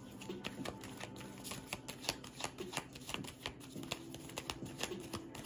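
A deck of oracle cards being shuffled by hand: quick, irregular card clicks and flicks, several a second.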